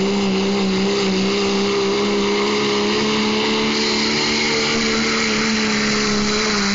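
Diesel pickup truck engine running flat out at a steady, high pitch while pulling a weight sled down a dirt pull track. A brighter high hiss joins about four seconds in.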